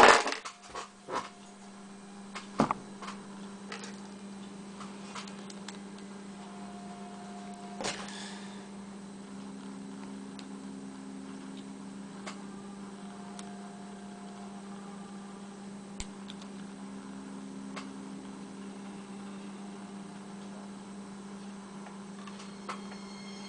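Steady electrical hum with scattered light clicks and taps from lock picks being worked in a padlock, sharpest in the first few seconds.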